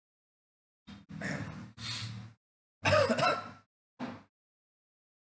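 A person's voice in a video call: five short, breathy bursts of sound, cut to dead silence between them.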